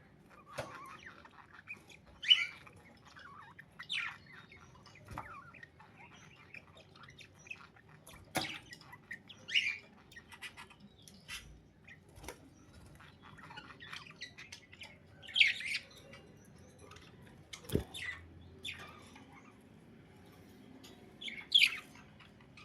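Budgerigars chirping and squawking in short, scattered calls every second or two, with a few sharp clicks in between.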